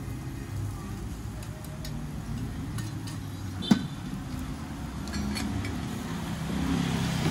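Street ambience with a steady low traffic rumble, under light scraping and clinks of a metal scoop working ash over charcoal in a clay stove. One sharp knock comes a little past halfway.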